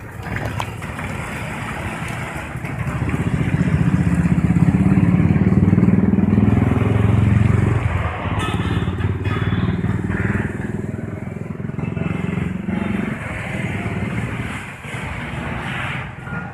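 A motor vehicle's engine running, with a low rumble that grows louder about three seconds in and eases off about eight seconds in.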